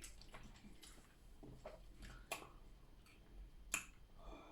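Faint eating sounds: scattered small clicks and smacks of chewing and lips. A sharper click comes about two seconds in, and the loudest one near the end.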